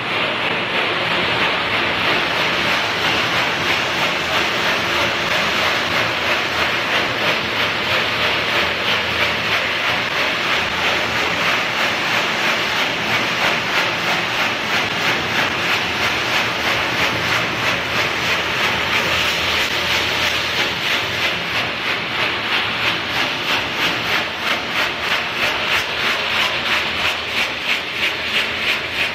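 Pet food processing line machinery running: a steady, loud hiss of fans and motors, with a rhythmic pulsing of about two beats a second that becomes plainer in the second half.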